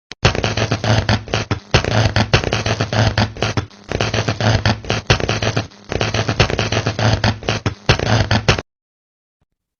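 Electric arcing: dense crackling sparks over a low hum, coming in bursts of about two seconds each.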